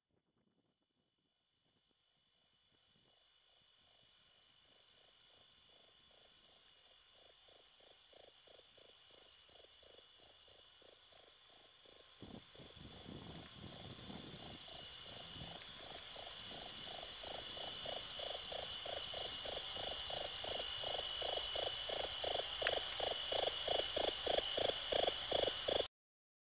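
Rhythmic cricket-like chirping, about two chirps a second, swelling steadily from faint to loud over more than twenty seconds and then cutting off suddenly.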